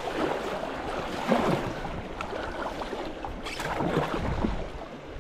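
A kayak being paddled on a river: paddle strokes swishing and splashing in the water, with irregular splashes about a second and three and a half seconds in.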